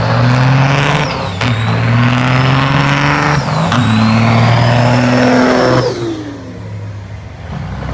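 Diesel semi-truck engines at full throttle in a drag race launch. The pitch climbs through each gear and drops back at the shifts, about one and a half and four seconds in. About six seconds in the engine note falls away and the sound gets quieter.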